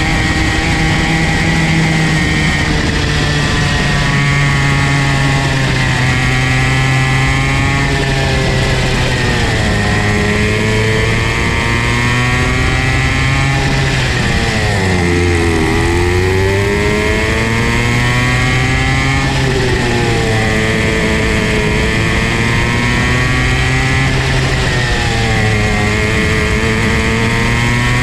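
Comer C50 50 cc single-cylinder two-stroke kart engine running hard, heard from on board. Its pitch climbs on the straights and sags as the kart slows for corners, dropping deepest about halfway through before winding back up.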